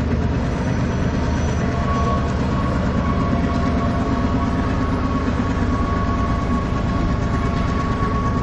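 Diesel passenger train approaching over a stone arch railway bridge, its locomotive engine giving a steady low rumble, with a thin steady whine that strengthens about two seconds in.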